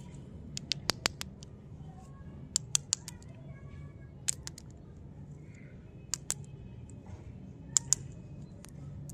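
Sharp little clicks and taps as candy lollipops on white sticks are picked up and knocked together into a bunch in the hand. They come in irregular clusters, several in quick succession about a second in and again near the end.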